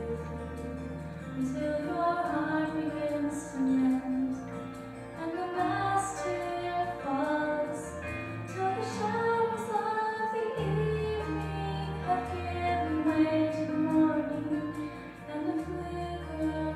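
A woman singing a solo into a microphone over instrumental accompaniment, whose held bass notes change a few times.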